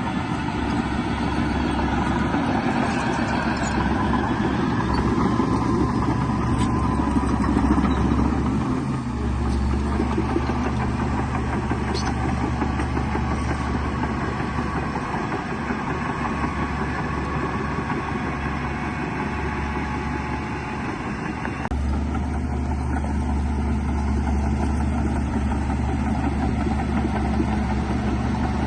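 Heavy diesel engines of a bulldozer and dump trucks running steadily as they work, with a deep, even engine drone. The sound changes abruptly twice, about nine and twenty-two seconds in.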